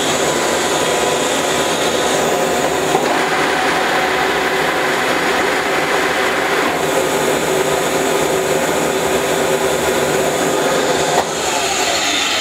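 Table power feed of an Abene VHF-3 milling machine running steadily: the feed motor and feed gearbox drive the table through a telescopic shaft, giving a steady mechanical hum with several whining tones. The sound turns brighter from about three seconds in to about seven seconds in, and there is a click near the end.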